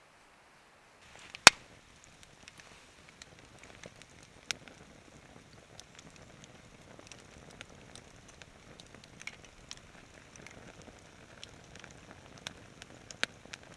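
A fire crackling: a steady low hiss with irregular pops and snaps, starting about a second in with one loud snap.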